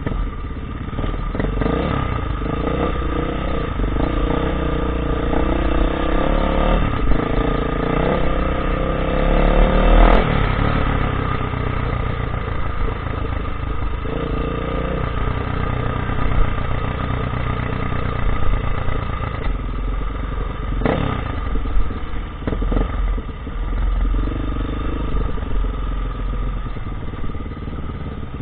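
Off-road dirt bike engine running under load on a trail, revving up and down through the gears, with a long climb in pitch to about ten seconds in. A heavy low rumble from the ride and the rough ground runs underneath.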